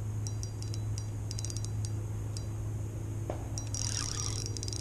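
Spinning reel clicking in short rapid bursts while a hooked fish pulls against a loosely set drag. A steady low hum runs underneath.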